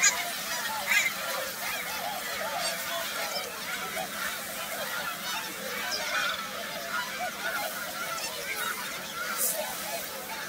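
Many geese honking at once, their calls overlapping without a break, with a short sharp click right at the start.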